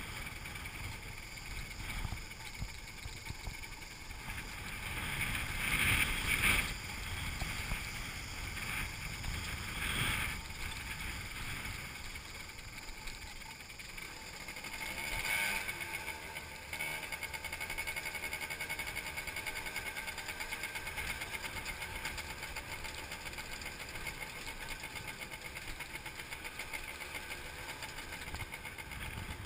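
Motorbike running along a rough dirt track, its engine under wind rushing over the microphone, with a few louder swells in the first half.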